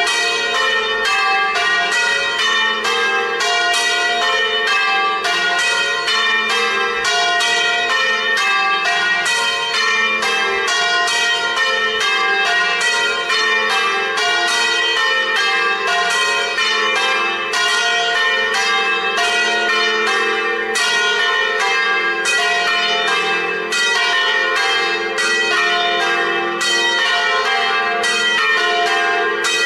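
Several swinging church bells of different pitch ringing a full festive peal, their strokes coming quickly and overlapping without a pause.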